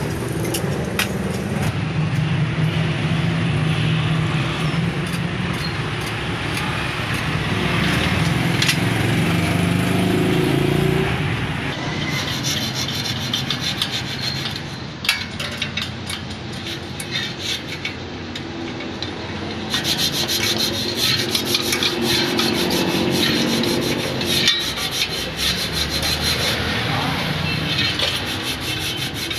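Spoked motorcycle wheel being trued on a stand: steady metal rubbing and scraping as the spoke nipples are worked and the rim passes the gauge bar, with a rapid run of fine clicks in the later part.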